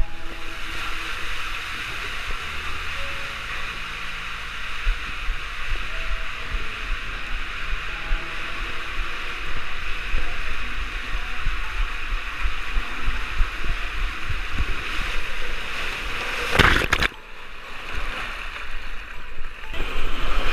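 Water rushing and sloshing through an enclosed tube water slide, heard from a camera carried by the rider. About 17 seconds in comes a loud splash as the rider shoots out into the runout lane. The sound then drops for a few seconds before the rushing water returns.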